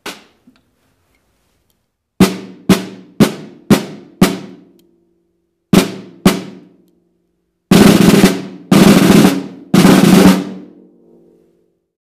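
Snare drum struck with wooden sticks in a marching-style figure: five evenly spaced single strokes, a pair of strokes, then three short rolls, the loudest part, each ringing briefly before dying away.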